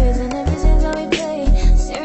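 Music playing: a song with deep bass notes, held pitched notes and drum hits.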